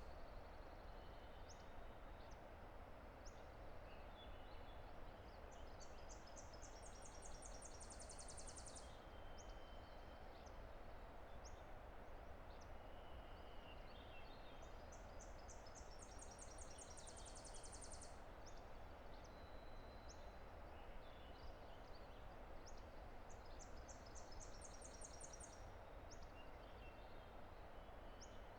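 A distant river's steady roar, faint, with a songbird repeating a fast, high trill about every eight or nine seconds and scattered short chirps from other birds.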